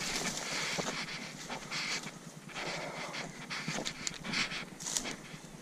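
A person walking through dry grass and brush, with rustling, scuffing footsteps and hard, panting breaths.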